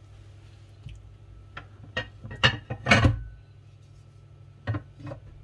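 A string of sharp knocks and clinks from cookware and kitchen utensils, the loudest about three seconds in with a short ring after it, two more near the end, over a steady low hum.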